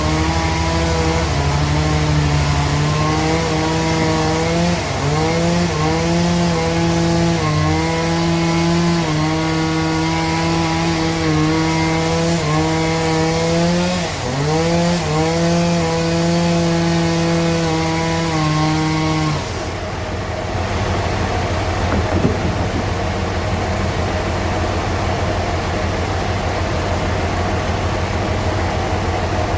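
Sawmill bandsaw running through a large log, its steady hum dipping in pitch a few times as the cut loads it and then picking back up. About twenty seconds in the hum stops and duller, steady machine noise carries on.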